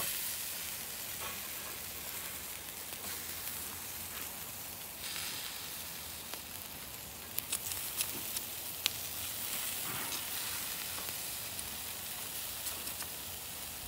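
Pork pieces sizzling steadily on the grate of a charcoal kettle grill, with a few sharp clicks of metal tongs against the grate a little past halfway.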